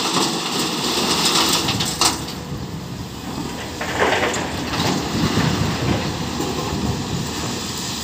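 Broken rock clattering as it is dumped from a Cat excavator's bucket into a steel dump-truck body, a dense rattle that stops sharply about two seconds in. The excavator's diesel engine then runs under load, and near halfway its bucket scrapes and digs into the loose rock pile.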